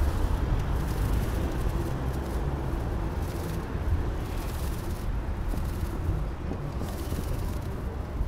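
Steady low rumble of city street noise, traffic and wind on the microphone, with no single event standing out.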